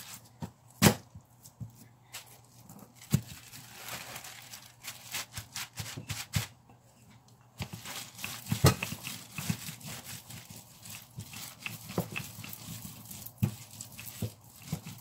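Clear plastic bag crinkling and rustling as it is smoothed out over a countertop, then a wooden rolling pin rolling bulgur kubba dough flat under the plastic, with a few sharp knocks.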